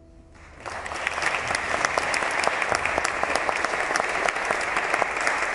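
Audience applause breaking out about half a second in and going on as a dense, steady clapping.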